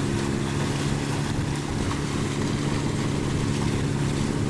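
Wooden river passenger boat's engine running at a steady cruising speed as the boat pushes upstream, a constant droning hum, with a steady hiss of water and wind beneath it.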